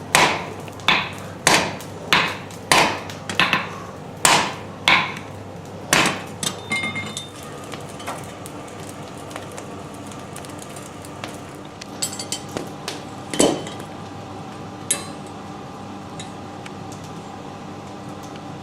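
Hammer blows on stainless steel: about ten sharp, ringing strikes in quick succession over the first six seconds, then a few lighter scattered taps and clinks.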